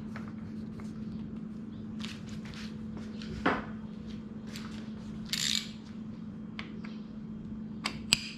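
Hand tools and a 27 mm socket being handled while fitting the air-spring top cap of a suspension fork: scattered light clicks and metal knocks, the loudest a knock about three and a half seconds in, a brief rustle, and two sharp clicks near the end.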